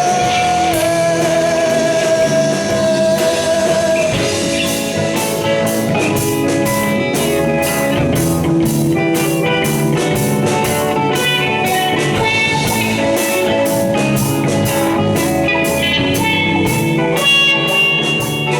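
Live psychedelic rock band playing an instrumental stretch between sung lines, with guitar and drum kit. A held note rings out for the first few seconds, then steady cymbal strokes keep time.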